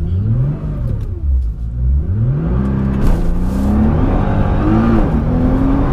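Nissan GT-R's twin-turbo V6 accelerating hard from a launch-control start, heard from inside the cabin. The revs climb and drop back at each of several quick upshifts.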